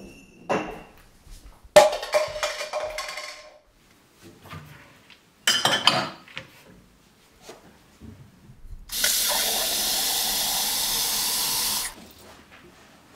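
Glassware knocking and clinking as a drinking glass is taken from a cupboard: a sharp knock with ringing about two seconds in, the loudest moment, and another near six seconds. Then a kitchen tap runs steadily for about three seconds, filling the glass with water, and cuts off.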